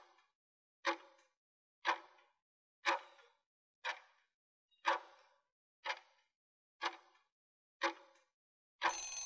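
Countdown timer sound effect: a clock ticking once a second, followed near the end by a brief, louder tone-like sound as the countdown runs out.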